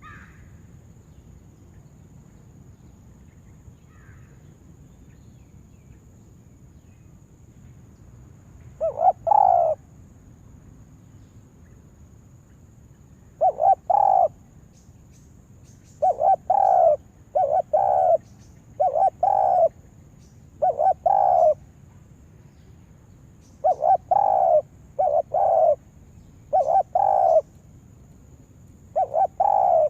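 Spotted dove (tekukur) kept as a decoy bird, cooing in short repeated phrases. The calls start about nine seconds in and come about ten times, closer together towards the end.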